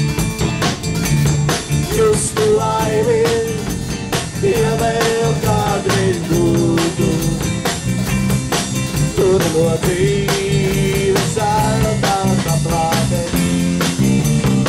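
Live band playing amplified music: a drum kit keeps a steady beat under electric guitars and a walking bass, with a gliding lead melody line on top.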